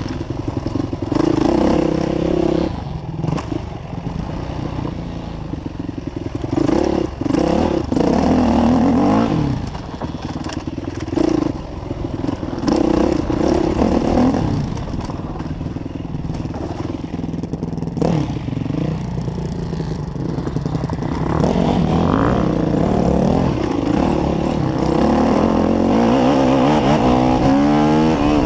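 Yamaha YZ450F single-cylinder four-stroke dirt bike engine revving up and down as the bike is ridden around a dirt track, heard from a handlebar-mounted camera, with rattling from the bike and wind noise throughout.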